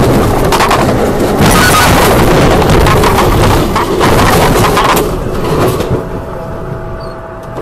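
A semi-truck crashing and rolling over, heard from inside its cab: a loud, dense clatter of impacts and crashing metal lasting about five seconds, then dying down to a lower rumble. A thin steady tone starts about six seconds in.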